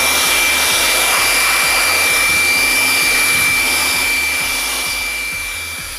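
Bosch GBL 620 electric air blower running at full speed: a steady rush of air with a constant high motor whine as it blows over a circuit board. The sound fades away over the last second or so.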